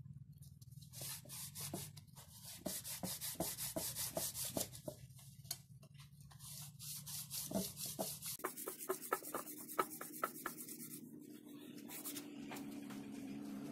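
Metal engine part rubbed back and forth on sandpaper laid on a flat surface, in quick rasping strokes about three a second. The rubbing levels the mating surface so that it seals without a compression leak.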